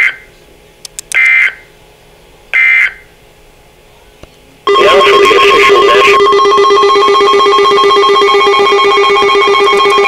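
Weather alert radio sending the three short bursts of SAME end-of-message data tones, about a second and a half apart, closing the flash flood warning. A little under halfway through, a loud, steady electronic alert tone with several pitches starts abruptly and holds.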